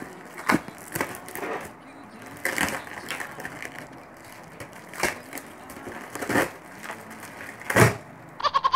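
Clear plastic wrap and packing tape being torn and crinkled off a cardboard box, in irregular bursts, with a louder thump on the box shortly before the end.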